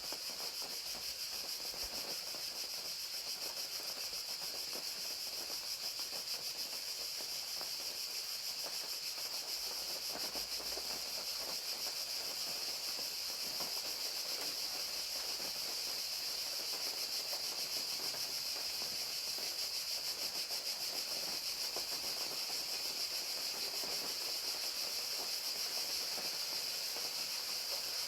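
Crickets chirping in a steady, unbroken chorus, high-pitched, with rain falling steadily underneath as a soft patter.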